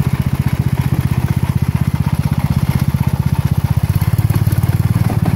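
16 hp Tecumseh OH160 single-cylinder engine of a 1970 Sears Suburban lawn tractor running under way, with a fast, even exhaust beat that grows a little louder about four seconds in.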